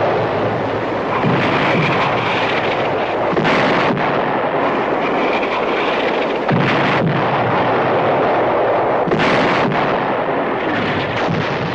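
Artillery barrage: shells exploding one after another over a continuous heavy rumble, with sharper blasts standing out about four, seven and nine seconds in.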